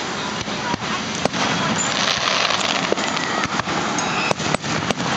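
Fireworks display: aerial shells bursting in an irregular string of bangs, over a dense wash of crackling.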